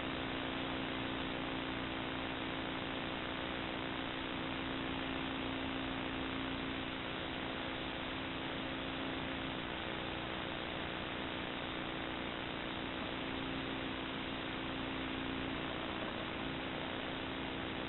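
Steady hiss with a constant electrical hum from a birdhouse nest camera's audio feed, with no bird calls.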